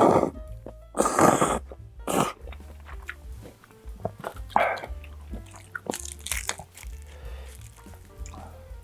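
A person eating close to the microphone: chewing and biting crunchy food, in irregular bursts, over background music.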